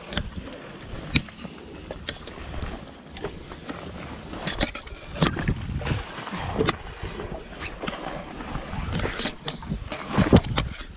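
Wind rumbling on the microphone, with scattered sharp knocks and scrapes through it, the loudest near the middle and near the end.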